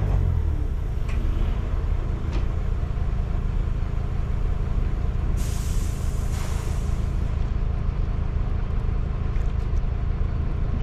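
Steady low rumble of a heavy vehicle's engine. About five seconds in, a hiss of air brakes lasts a second or two.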